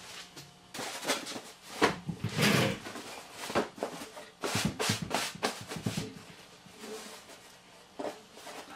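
Handling of a fabric chair cushion stuffed with fabric scraps: it is shaken, flattened and patted onto a wooden chair seat, giving rustles and soft thumps. The heaviest thumps come about two seconds in and again around five seconds, then it settles to lighter pats.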